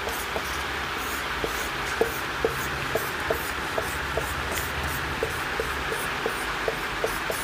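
Marker pen drawing on a whiteboard: short squeaks and taps about two or three a second as dots and loops are drawn.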